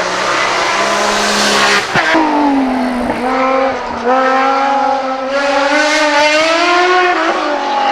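Group CN sports-prototype racing engine accelerating hard uphill. The revs climb and drop sharply at gear changes, once about two seconds in and again near the end.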